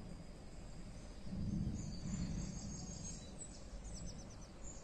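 Faint outdoor ambience: a low rumbling noise that swells about a second and a half in, with high bird chirps over it, ending in a quick run of about five short notes near the end.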